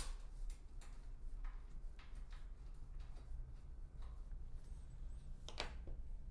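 Light, irregular clicks and taps of small kit parts being handled and fitted while the door is mounted, with a sharper click about five and a half seconds in, over a steady low hum.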